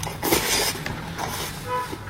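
Close-miked eating noises: a loud, noisy slurp-like burst about a quarter second in and scattered mouth clicks, then a brief steady pitched tone near the end.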